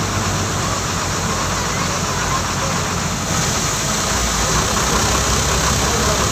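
Diesel engine of a stopped bus idling with a steady low rumble, heard from inside the cabin.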